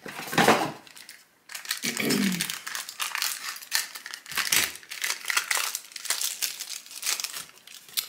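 Thin plastic wrapping crinkling and rustling in a dense run of short crackles as it is pulled at and cut open with scissors.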